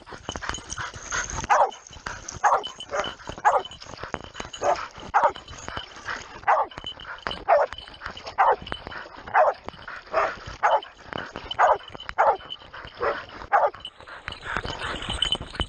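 Hunting dog baying at a wild boar it has cornered, with loud barks at about one a second, each dropping in pitch. The barking stops near the end, over the steady rush of a shallow stream.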